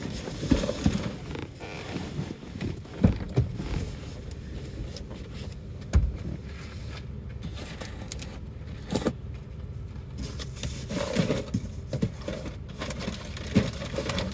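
Wind buffeting a car, heard from inside the cabin as a low rumble and hiss, with scattered knocks; the sharpest knock comes about six seconds in.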